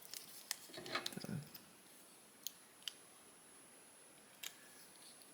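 Small clicks and handling noise from a plastic action figure being posed: a cluster of clicks and rustling in the first second and a half, then a few single clicks spread out after it.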